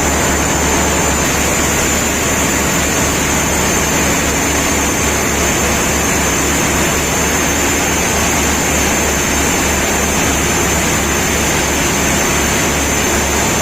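Passenger river launch's engine running steadily, a loud unbroken low drone with a thin high whine over it.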